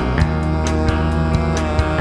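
Rock music from a band's demo recording: guitar over a steady beat of about four strikes a second.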